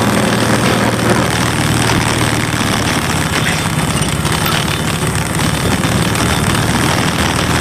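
A vehicle engine running steadily while driving, with an even rush of road and wind noise over it.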